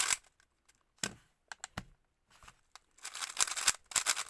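A GAN 11 M Pro magnetic speed cube being turned fast, its layers snapping round in quick clattering runs of clicks. A few separate sharp clicks come about a second in, and a longer rapid run starts near the end.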